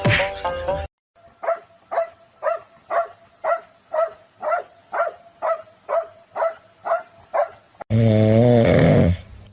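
A dog barking over and over in a steady rhythm, about two barks a second. Near the end it gives way to a louder, wavering pitched sound.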